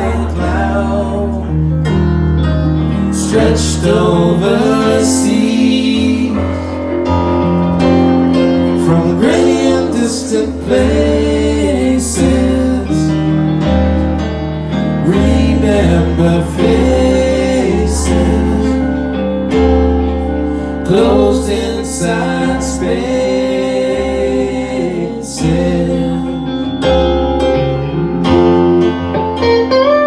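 A live electric guitar and keyboard duo playing a song, with sustained low bass notes under a bending melodic line.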